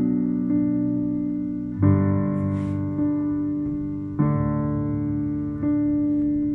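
Electronic keyboard with a piano sound playing a slow ballad: sustained chords struck about every two and a half seconds, each fading slowly, with single notes re-struck in between.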